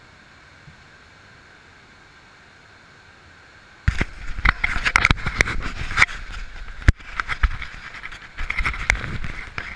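Steady faint rush of a small river waterfall. About four seconds in, loud scraping, rubbing and sharp knocks break in as the camera is handled and shifted against the rock, and they go on until near the end.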